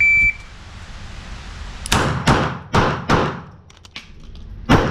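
Shot timer's start beep, followed by pistol shots: four quick shots about 0.4 s apart, then after a pause a fifth shot near the end.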